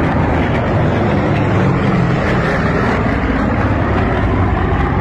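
Steady drone of piston aircraft engines overhead: a B-17 Flying Fortress's four radial engines, with a fighter's engine close by, as a loud, even rumble.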